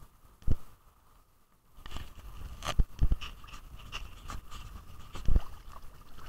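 Wind-driven sea waves splashing and slapping against a waterproof action camera held at the water surface, with several sharp knocks as waves hit the housing. The first second and a half, with the camera looking down through the water, is muffled and quiet apart from one thump.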